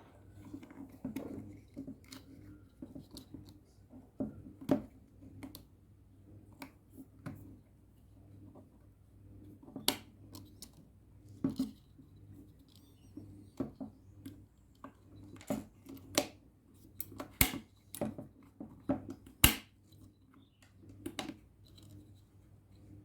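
Screwdriver and hands working on a car door lock mechanism: irregular clicks, taps and scrapes of metal on plastic, with two sharper clicks near the end.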